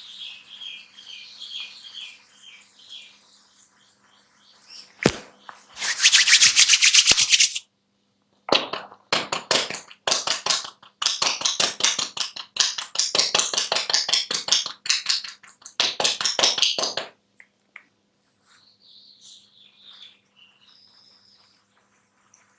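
Hair being rubbed and crackled between a barber's fingers close to the microphone. A dense crackle comes in one long burst about six seconds in, then in a run of repeated short bursts for about eight seconds. Faint high chirping is heard before and after.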